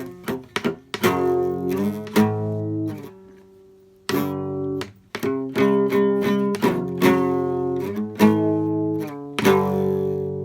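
Guitar chords strummed and left to ring as a song's introduction, with a brief fade about three to four seconds in before the strumming picks up again.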